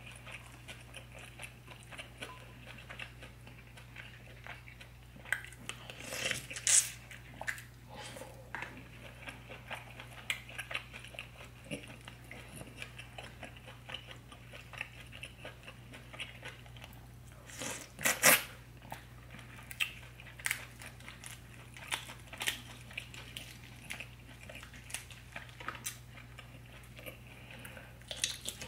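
Close-miked chewing and wet mouth sounds of someone eating a sauce-soaked deshelled seafood boil, with many short smacks and clicks; the loudest bursts come about six seconds in and again around eighteen seconds.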